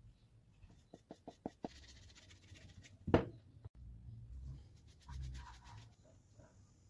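Handling sounds of a rubber bicycle inner tube on a metal tube: a few light ticks, a single louder knock about three seconds in, then soft rubbing of rubber.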